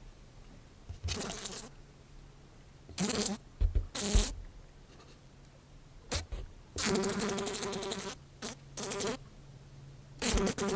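A fly buzzing in short, separate bursts as it flies about and lands, about eight buzzes, the longest lasting about a second and a half just past the middle.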